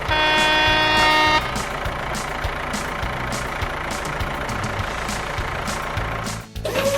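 A truck horn honks once, held for about a second and a half. Then a truck engine runs with a steady low rumble as the dump truck drives off. A musical tone starts just before the end.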